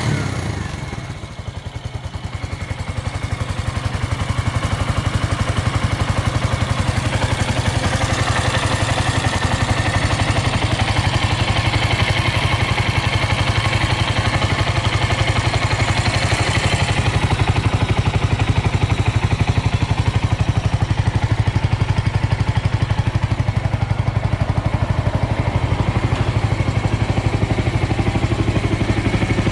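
Suzuki Volty 250's single-cylinder four-stroke engine idling steadily after a cold start. It dips briefly about a second or two in after the throttle is let off, then settles into an even idle with no abnormal noises.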